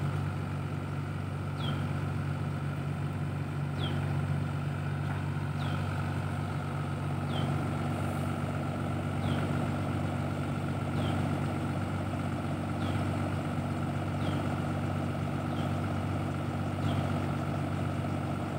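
XGMA XG822EL excavator's Shanghai diesel engine idling steadily, its low drone unchanging. A short high chirp repeats about every two seconds over it.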